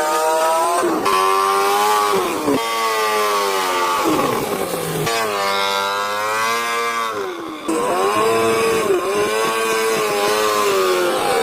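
An engine revving, its pitch rising and falling in repeated smooth sweeps, each broken off after a second or two.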